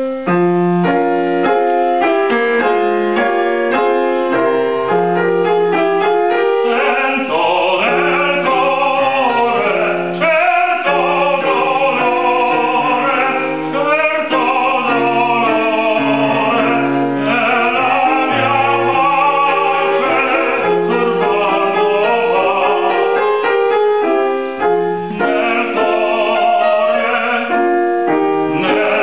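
Grand piano accompaniment playing alone at first. From about seven seconds in, a male tenor joins, singing opera with a wide vibrato over the piano.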